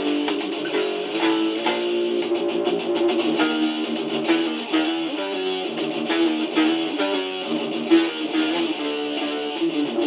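Electric guitar playing a fast picked thrash metal riff, with a rapid run of changing notes.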